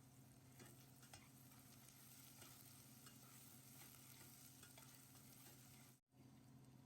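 Very faint sizzling of garlic, onion and ginger sautéing in a pan with soy sauce and fish sauce, with a few faint ticks.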